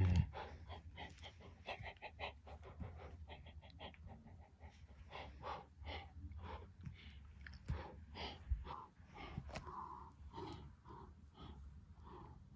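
A person's breathy, irregular puffs and gasps close to the microphone, with soft rustles and a knock at the start.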